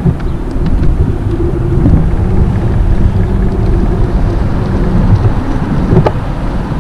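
Wind buffeting the microphone over the rumble of an ICE recumbent trike rolling along an asphalt street, with a sharp click about six seconds in.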